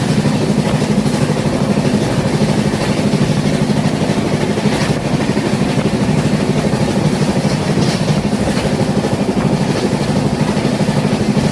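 Train running: a loud, steady rumble with a fast, even throb.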